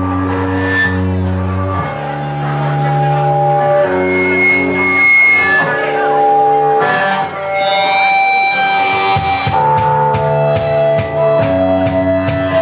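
Live rock band playing: held guitar chords that change about every two seconds, with drum hits joining in the second half.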